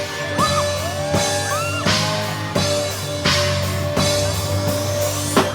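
Live band playing during a sound check: a drum kit keeps a steady beat of about one hit every 0.7 s under held chords, with sliding notes over them, and a harder hit near the end.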